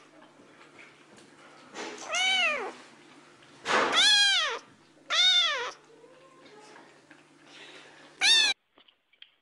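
Kitten meowing four times, each meow a high call that rises and then falls in pitch, with pauses of one to three seconds between them.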